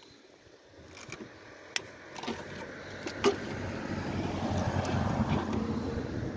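A few sharp metallic clicks and taps from pliers working a hose clamp. From about halfway, a passing vehicle's rumble swells up and is loudest near the end.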